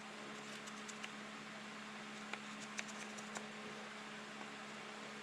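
Faint steady hum of workshop equipment, with a few light clicks scattered through it as the aluminum soft jaw is handled and marked in the vise.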